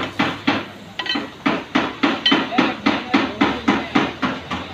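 Hammer blows on metal in a steady rhythm of about four strikes a second, with a short break about a second in; a few strikes ring.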